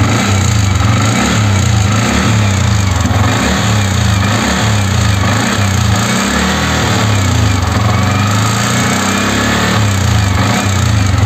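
Yamaha MT-15's 155 cc single-cylinder four-stroke engine revved in quick throttle blips about once a second, with a khatak-khatak knocking from the valve train as it revs. It is a rocker-related noise, traced to excess exhaust-valve clearance from play in the rocker arm.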